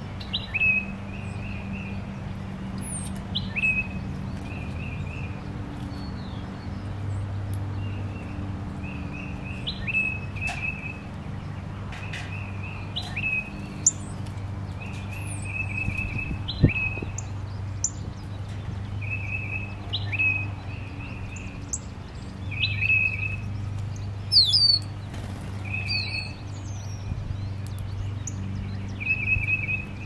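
Backyard songbirds calling: short chirps repeated in quick runs of three or four notes, with thin high falling whistles above them, over a low steady hum. A single sharp click sounds about halfway through.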